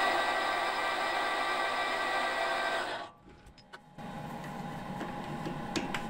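Metal lathe running while turning down the end of a small crank pin, a steady machine whine of several tones, sped up four times; it cuts off about three seconds in, followed by a quieter steady hum and a click near the end.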